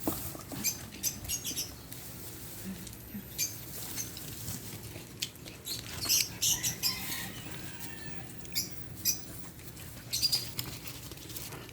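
A puppy and a young Belgian Malinois play-wrestling: irregular scuffling, scratching and patter of paws, with no barking.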